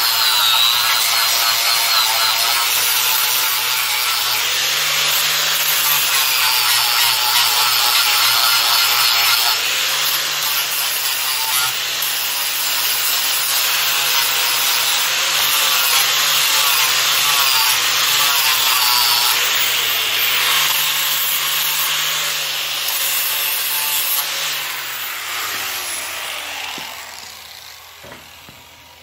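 Electric angle grinder with a flap disc grinding the edge of a steel flat bar, a steady loud grinding with the motor's whine rising and falling as pressure on the work changes, rounding off the bar's corner. Near the end the grinder is switched off and spins down.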